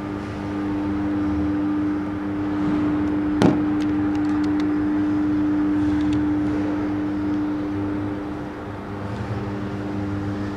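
City street traffic heard from high above, a steady wash of noise with a constant low mechanical hum through it. A single sharp click about three and a half seconds in, followed by a few faint ticks.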